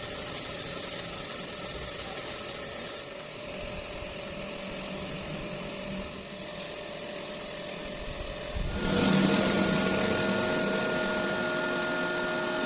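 A machine running steadily with a hiss and a few held tones, getting louder about nine seconds in.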